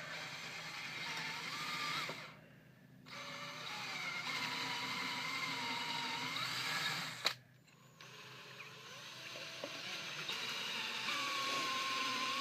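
Electric drill running, boring holes in a piece of wooden 2x4; its motor whine wavers in pitch as the bit loads in the wood. It stops briefly twice, with a sharp click just before the second stop.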